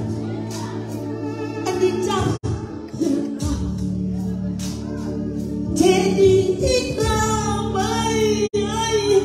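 A woman singing a gospel song into a microphone, amplified through a PA, over sustained electric keyboard accompaniment. The sound cuts out for an instant twice.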